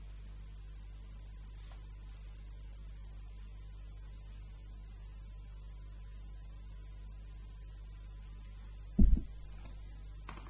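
Steady electrical mains hum with a faint hiss underneath, the background of the recording setup; a single loud low thump about nine seconds in.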